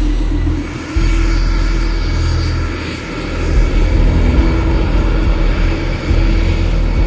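Propeller aircraft engine running loud and steady, with a deep hum and a steady droning tone; the level dips briefly several times.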